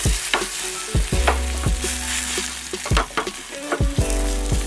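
Potato-and-egg omelette sizzling in hot oil in a nonstick frying pan. A wooden spatula knocks and scrapes against the pan several times as the omelette is flipped and pressed down.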